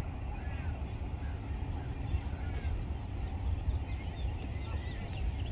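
Outdoor ambience: a constant low rumble with many small birds chirping in short, quick calls over it.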